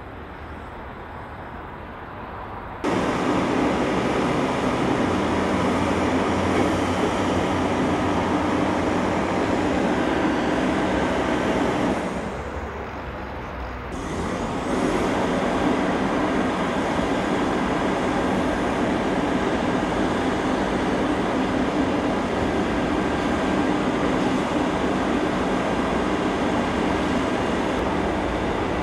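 Steady running noise of a heavy diesel vehicle. It comes in suddenly about three seconds in, dips briefly about twelve seconds in, then carries on at the same level.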